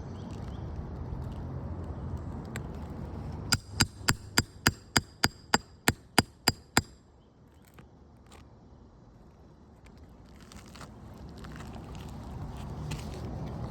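Roofing hammer striking a steel nail-removal tool about a dozen times in quick succession, roughly four strikes a second, each with a short metallic ring, working a roofing nail loose.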